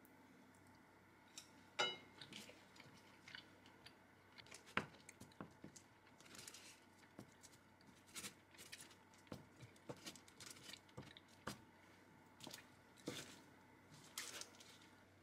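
Kitchen knife slicing smoked duck on a paper-lined wooden cutting board: soft, irregular cuts and taps of the blade through the meat onto the board. A sharper clink with a short metallic ring about two seconds in.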